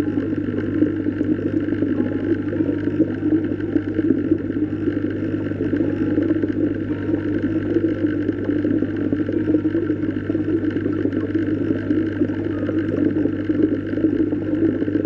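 Steady underwater ambience: a constant low hum under a rushing wash of water, with no change throughout.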